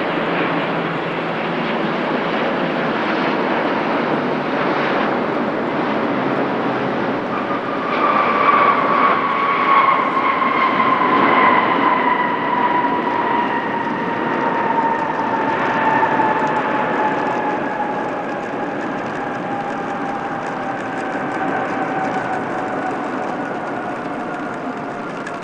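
A KLM Boeing 777-200ER airliner's twin GE90 jet engines. A steady rush of jet noise grows louder about eight seconds in, where an engine whine comes in and then slides slowly down in pitch as the plane passes and moves away.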